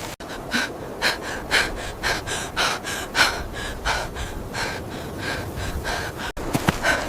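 A person breathing hard in quick, gasping pants, roughly two breaths a second.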